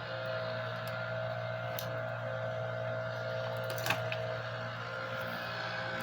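A steady mechanical hum at an even pitch, with one sharp click about four seconds in.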